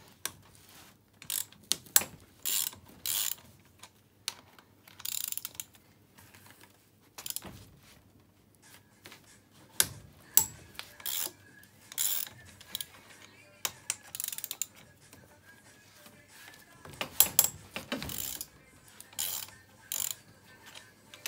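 Socket ratchet wrench clicking in short, irregularly spaced bursts as the cylinder-head nuts of a 250 cc ATV engine are loosened, about a dozen bursts in all.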